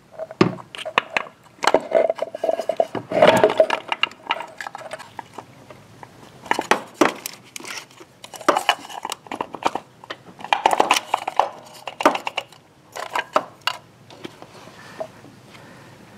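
Repeated metal clicks, knocks and scrapes come in several short spells as a GM HEI distributor is wiggled and pushed down into a small-block Chevy's intake manifold. Its shaft is not yet meeting the oil pump drive, so the distributor won't drop all the way down.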